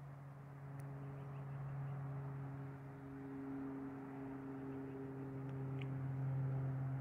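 A vehicle engine running with a steady low hum, its pitch drifting slightly.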